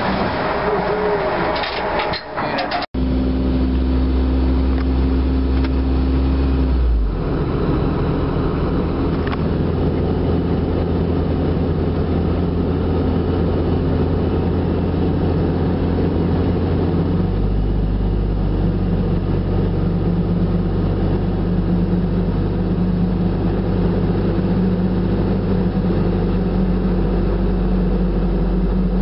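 Vehicle engine and road noise while driving down a street, a steady low hum whose note shifts twice, about seven and seventeen seconds in. It follows about three seconds of heavier machinery rumble aboard the river ferry that ends in an abrupt cut.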